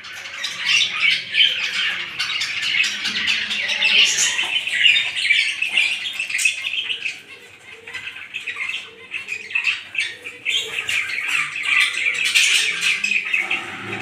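A flock of budgerigars chattering and chirping continuously, many birds calling over one another, with a brief lull about seven seconds in.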